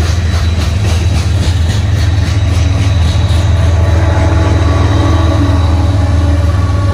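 Freight train passing close by: tank cars and a covered hopper clicking over the rails about four times a second over a steady low drone. About four seconds in, the mid-train GE diesel-electric locomotives, a KCS ES44AC and a UP AC44CW, come past and their engine hum takes over from the clicking.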